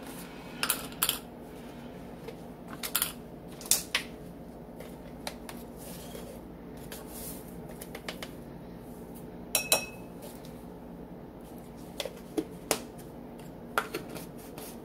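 Scattered light clicks and taps of a measuring spoon and spice jar as dried oregano is scooped out and tapped off, about ten in all with gaps of several seconds between some. A faint steady hum runs underneath.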